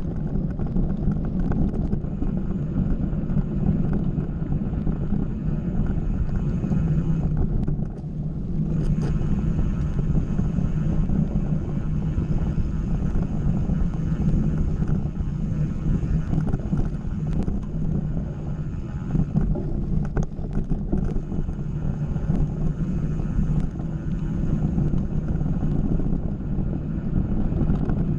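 Mountain bike riding fast along a dirt singletrack: a steady rumble of wind over the action camera's microphone and tyres rolling on the trail, with a few light clicks and rattles, easing briefly about eight seconds in.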